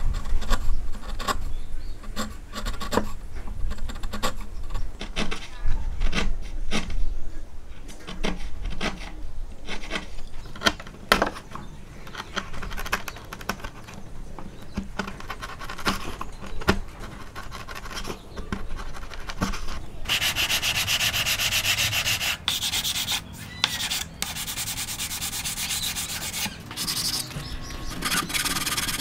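A steel hand chisel paring and chopping into wood, with a run of sharp clicks and cracks as it bites the grain. About two-thirds of the way in, this gives way to a steady, scratchy rubbing on the wood, like hand sanding, broken by a few short pauses.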